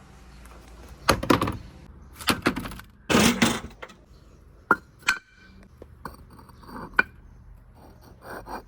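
Small balls knocking and clattering in irregular bursts, with a loud cluster about three seconds in and single sharp clicks around five seconds in.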